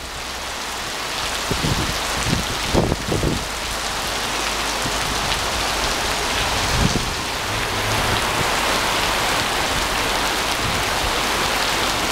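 Heavy rain pouring steadily onto a paved street and rooftops, a dense even hiss, with a few short low thumps in the first few seconds and once around the middle.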